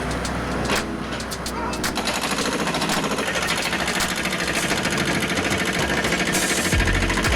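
Excavator working, with a rapid, rhythmic mechanical clatter over a low steady engine hum; a heavier low engine note comes in near the end.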